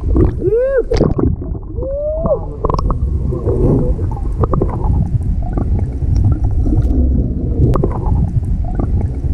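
Water sloshing and gurgling around a camera dipped at the surface and then underwater, heard as a heavy, muffled low rumble. A couple of short swooping tones come in the first two seconds.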